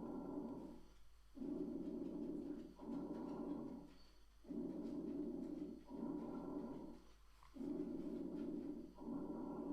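Normal vesicular breath sounds from a lung auscultation recording: a soft rushing noise on each breath in and out, repeating about every three seconds, with a short pause between breaths.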